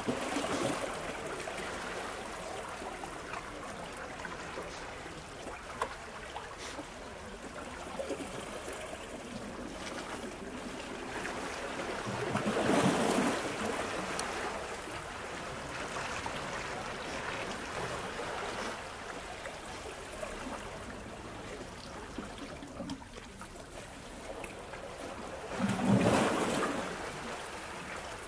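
Small sea waves washing and lapping against shoreline rocks in a steady wash. Two bigger surges swell up and die away, one about halfway through and one near the end.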